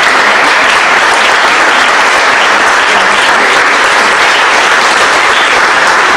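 A roomful of people applauding, a dense, steady clapping that holds at one level throughout.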